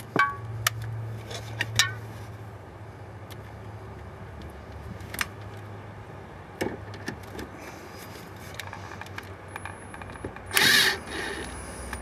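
Scattered metal clicks and clinks of a steel bracket and its fasteners being handled and started with hand tools, a few ringing briefly, over a faint low hum. A louder rasping burst lasts about a second near the end.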